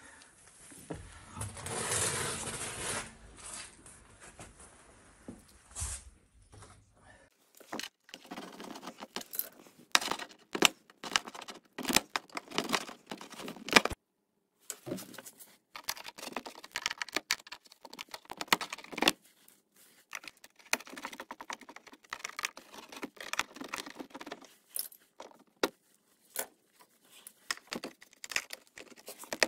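Small metal hand tools clinking and rattling in quick clicks and jangles, with a short rushing noise near the start.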